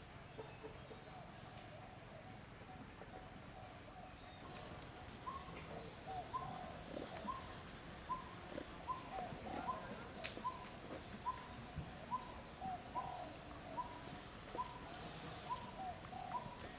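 A bird calling, repeating one short hooting note at an even pace of a little more than one a second, starting about five seconds in. A faint high ticking sounds over the first few seconds, and there is a single sharp click about ten seconds in.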